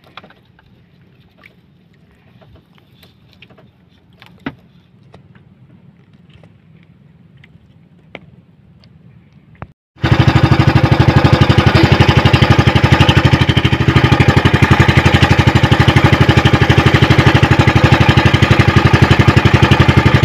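A motorized outrigger boat's engine running loud and steady with a fast, even pulse, coming in suddenly about halfway through. Before it there are only a few faint clicks and knocks.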